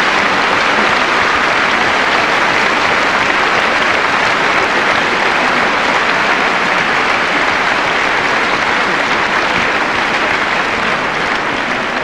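Large audience applauding steadily in response to a punchline, dying down slightly near the end.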